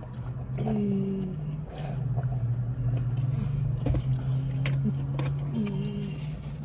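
Closed-mouth humming: a long low steady hum with short wavering higher notes near the start and near the end, and a few sharp clicks.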